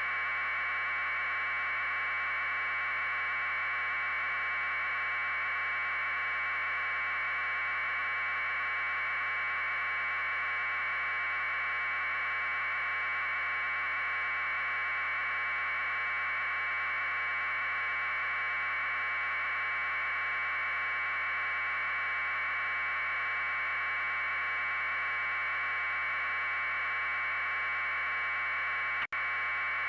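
Steady, unchanging hiss of static on a raw aerial video feed, cutting out for an instant near the end.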